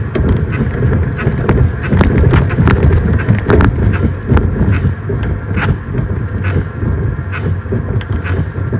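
Phone handling noise: a steady rumble with repeated knocks, rubs and clicks as the phone is held and moved against its microphone.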